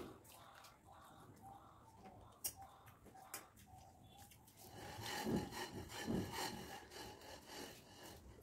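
Eating by hand from a steel plate: chewing, and fingers mixing rice against the plate. A few sharp clicks come in the first few seconds, and a louder stretch of rough scraping comes about five to seven seconds in.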